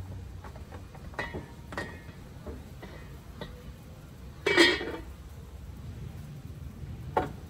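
Kitchen utensils and a plastic cutting board being handled: a few light clinks and knocks, then one louder clatter a little past halfway.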